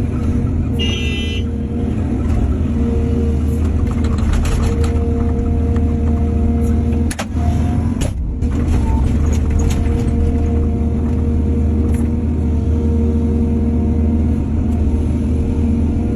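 Heavy diesel machinery running steadily with a deep, even drone, from an excavator loading soil into trucks. A short high-pitched whine sounds about a second in, and the sound briefly dips about seven seconds in.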